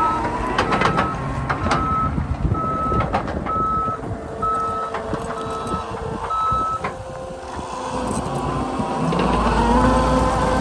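John Deere 333G skid steer's back-up alarm beeping about once a second over its running diesel engine while it reverses; the beeping stops about two-thirds of the way through, and near the end the engine pitch rises as the machine drives off again.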